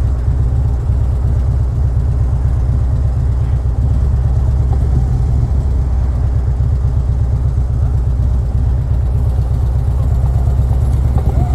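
Large touring motorcycle idling close by, its engine making a steady, low, rapidly pulsing sound.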